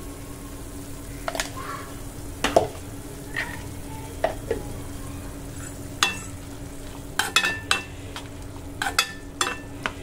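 A steel spoon stirring chopped carrots in a nonstick kadai, mixing in the salt just added. It clicks and scrapes against the pan at irregular moments, more often in the second half, over the soft sizzle of the vegetables cooking in a little water and a steady low hum.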